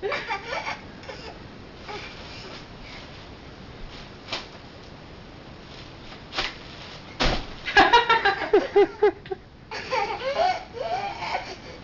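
A young child laughing and squealing in bursts: once at the start, then a longer run over the last four seconds. A few single sharp clicks come in between.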